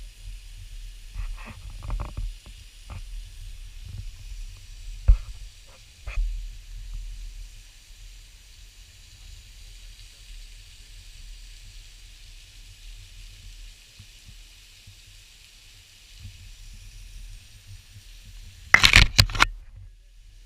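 Steady outdoor noise with a low rumble and a faint high hiss, broken by a few scattered knocks and a loud burst of crackling noise near the end.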